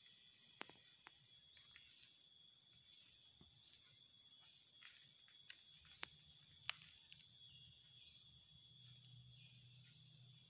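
Near silence: faint room tone with a steady high-pitched whine, broken by a few sharp clicks, three of them standing out.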